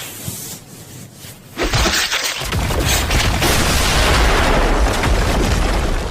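Anime sound effect: a sudden loud blast about a second and a half in, a dense rushing noise over a deep rumble that holds for about four seconds before easing off.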